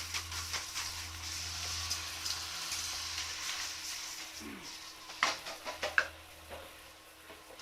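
Water spraying and splashing onto a sooty metal wood-stove box as it is washed off: a steady hiss that fades about three and a half seconds in, then scattered sharp metal clinks, two louder ones about five and six seconds in.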